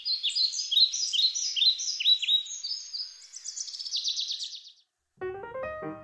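Rapid, high, bird-like chirping and twittering for about four and a half seconds, ending in a fast trill and cutting off. After a brief gap, piano music begins.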